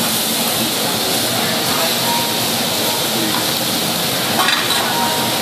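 Diced meat sizzling on a hot teppanyaki steel griddle while metal spatulas scrape and tap the plate, with one sharp spatula tap about four and a half seconds in.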